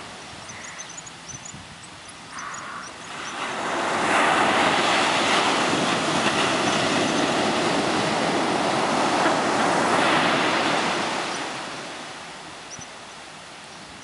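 Ocean surf breaking on a sandy beach. About four seconds in, a wave breaks and its wash swells loud for several seconds, then fades back to a lower hiss.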